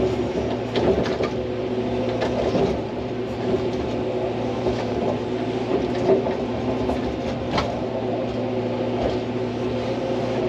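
Hydraulic excavator's diesel engine running steadily, with scattered knocks and scrapes from the bucket digging in stony ground.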